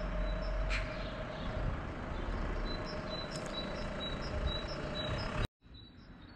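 Outdoor street ambience: a steady low rumble with a faint hum, and a small bird repeating a short high chirp about twice a second. The sound cuts out abruptly about five and a half seconds in and comes back quieter.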